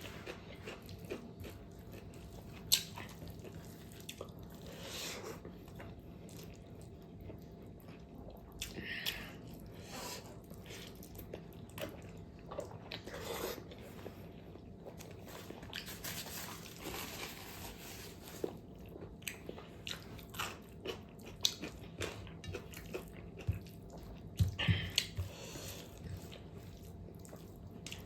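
A person biting and chewing fatty pork close to the microphone, with irregular short clicks from the mouth.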